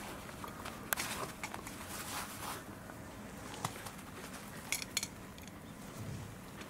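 A few short clicks and taps over a low, steady background as a dog plays with a tennis ball on artificial turf.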